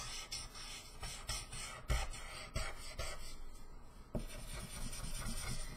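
Copic alcohol marker's chisel tip rubbing over paper in repeated colouring strokes, a scratchy rasp with a short lull a little past three seconds in.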